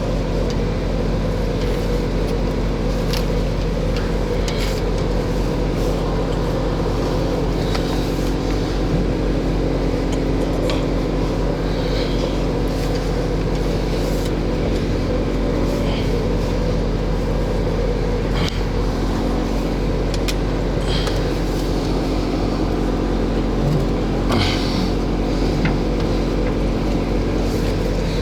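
A motor-driven machine hums steadily, with scattered clicks and knocks from work going on around it.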